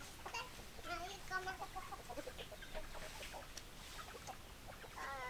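Domestic hens clucking: a run of short, scattered clucks, with a longer drawn-out call starting near the end.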